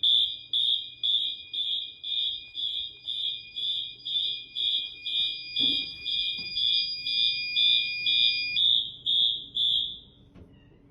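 Wheelock fire alarm horns sounding together: a pulsing high-pitched horn at about two beats a second over a steady high tone. The steady tone cuts out about eight and a half seconds in, and the pulsing stops about a second and a half later. There is a single knock about halfway through.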